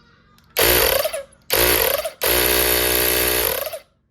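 Inco 20 V cordless tyre compressor, its housing opened, run in three bursts on its battery: the small electric motor drives the gears and piston, running with a loud buzz. The first two bursts are short and the third lasts about a second and a half.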